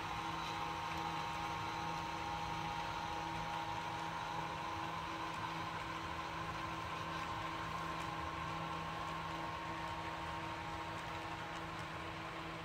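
HO-scale freight cars rolling past on model railroad track: a steady rolling noise with a constant low hum and a wavering whine.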